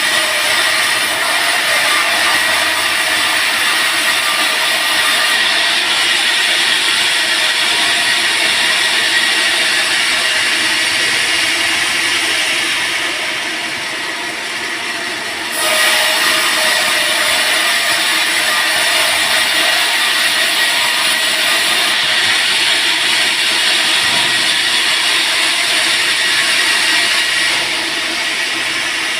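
Band sawmill running and sawing teak: a steady, loud mechanical hum with a hissing saw noise. It eases for a few seconds about halfway through and then comes back suddenly at full level.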